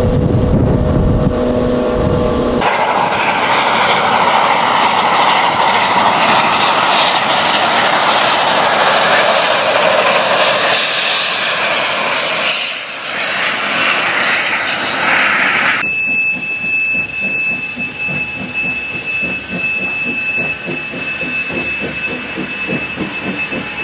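Trains in three cut-together clips. First a train horn sounds a steady two-note chord, cut off about three seconds in. Then comes the loud, steady rush of a train passing behind Santa Fe 3751's steam locomotive. From about sixteen seconds a steam locomotive works slowly, with an even chuffing rhythm and a steady high tone over it.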